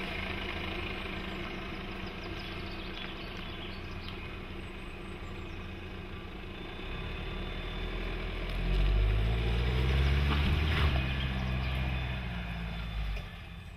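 Jeep Cherokee's four-cylinder 2.2-litre turbodiesel running at low revs. About halfway through it rises in pitch and gets louder as the SUV pulls up a steep dirt ramp, then eases off near the end.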